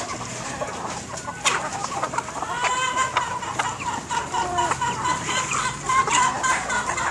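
Chickens clucking, many short calls overlapping. A sharp click comes about a second and a half in.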